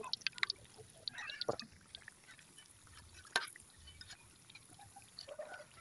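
Vegetable fritters deep-frying in a wok of hot oil: faint, scattered crackles and pops, with a sharper click about three and a half seconds in.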